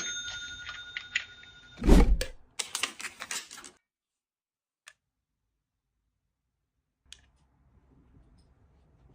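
Clicks, crackles and a loud thump about two seconds in, then several seconds of dead silence before faint rustling returns.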